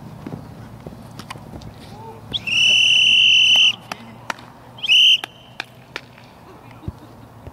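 Referee's whistle blown to stop the play: one long steady blast of a bit over a second, then a short second blast about a second later.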